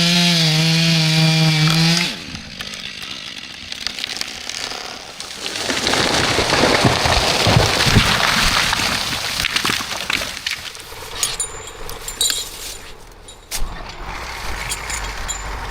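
Chainsaw running at full throttle for about two seconds, then cutting off. It is followed by several seconds of loud rushing, crackling noise that swells and fades, with scattered clicks and a low steady rumble near the end.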